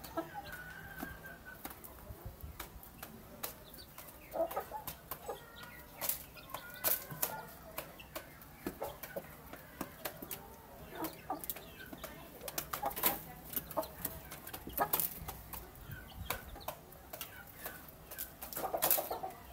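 A rooster and hens clucking softly while they feed, with many quick sharp taps of beaks pecking rice off a wooden floor, and a short burst of clucking near the end.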